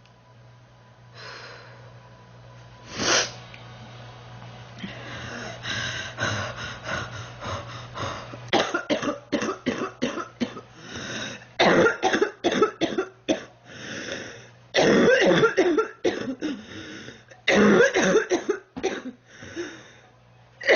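A sick girl coughing: one sharp cough about three seconds in, then coughs that come more often and build into fits of many quick coughs in a row over the second half.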